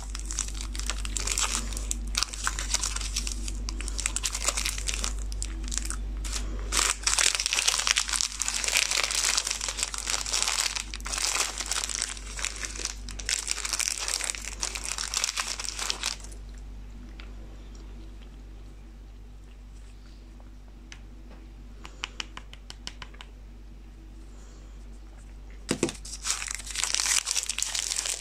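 Plastic chocolate-bar wrappers being torn open and crinkled by hand, a dense crackling and rustling. It thins out about halfway through to a few small clicks, then the crinkling starts again near the end.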